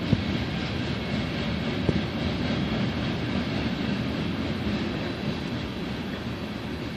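Union Pacific freight train's cars rolling past: a steady rumble of steel wheels on rail, with two sharp clanks in the first two seconds.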